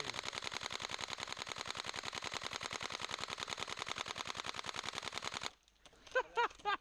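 Airsoft electric gun firing one long full-auto burst, about a dozen shots a second without a break, cutting off suddenly about five and a half seconds in.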